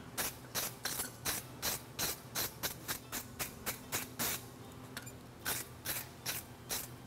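Hand file being worked in quick strokes along the edges of a forged steel horseshoe, about three strokes a second, pausing briefly a little past the middle; a steady low hum runs beneath.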